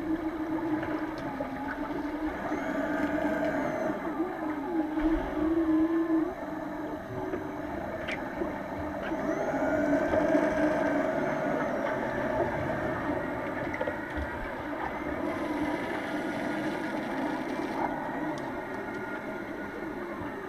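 Underwater pool ambience picked up by a submerged camera during an underwater rugby game: a steady muffled rumble with wavering, moaning hum-like tones that swell and fade, and a few faint clicks.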